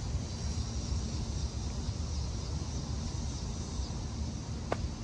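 Steady low outdoor rumble with a faint high hiss and no voices, and one brief click near the end.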